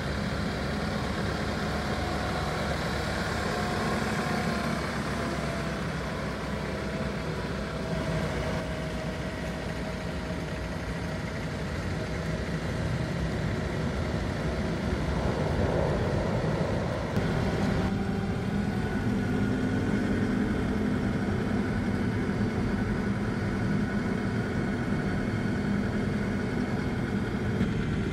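Diesel engine of a Case backhoe loader running steadily as the machine drives, the tone shifting about two-thirds of the way through.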